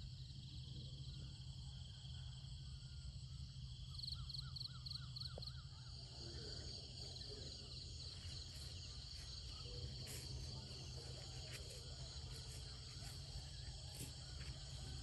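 Crickets and other insects chirping steadily and faintly, with a brief wavering trill about four seconds in. Soft rustles and clicks from steps through grass come in during the second half.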